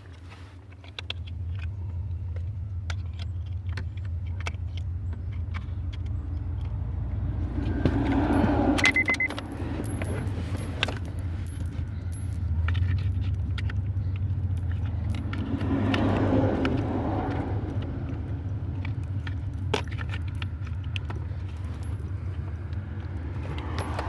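Keys and small metal parts jangling and clinking, with many scattered clicks and taps of hands working under a car's dashboard to fit a replacement main relay, over a steady low hum.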